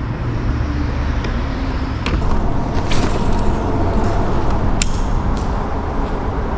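Wind buffeting the microphone in a steady low rumble, with a few light clicks and one sharp click about five seconds in.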